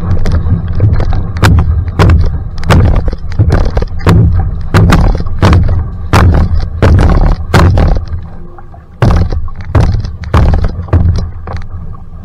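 Outrigger canoe (va'a) paddle strokes at sprint pace, about one and a half a second: each catch of the blade into the water gives a sharp splash and thunk, over a steady low rumble. The strokes ease briefly a little past the middle, then pick up again.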